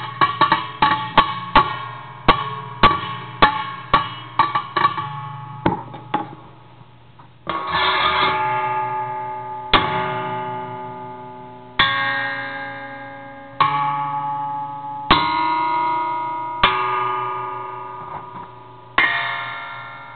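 A homemade amplified noise box, an aluminium box fitted with springs, threaded rods and wire tines, played by hand. About a dozen quick plucks and flicks of its springs come in the first six seconds. Then, from about seven seconds in, single strikes with a stick come every couple of seconds, each ringing on in several metallic tones that slowly die away.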